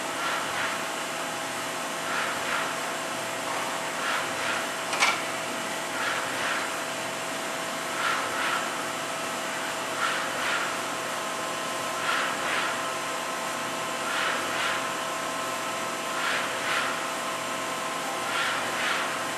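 Daewoo ACE-H100 horizontal machining center running a short program. A steady whine comes from the turning spindle and drives, with a pair of brief whirs about every two seconds as the column moves back and forth. A single sharp click comes about five seconds in.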